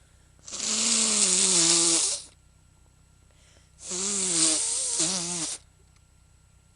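A person sneezing twice, each a long, drawn-out, breathy sneeze of a little under two seconds with a voiced cry that falls in pitch.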